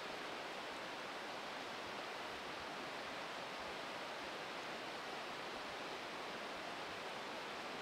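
Steady, even rush of flowing river water from the Oulanka river.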